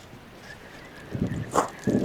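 Biting and chewing food close to the microphone: a few short crunchy, wet sounds in the second half.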